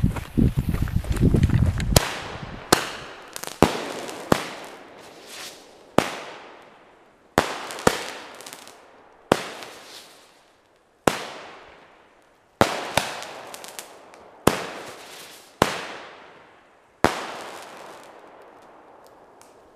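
Weco Antarctica 10-shot firework cake firing: a series of sharp bangs at uneven intervals of one to two seconds, each dying away quickly.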